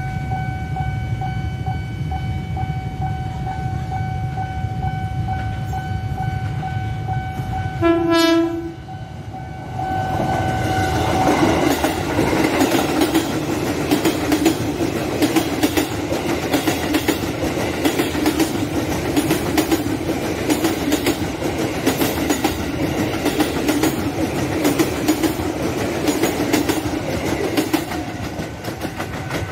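A steady electronic warning tone from the level-crossing signal sounds over a low rumble. About eight seconds in there is a short train-horn blast. Then an electric commuter train (KRL) passes close by, its wheels clattering over the rail joints in quick repeated clicks.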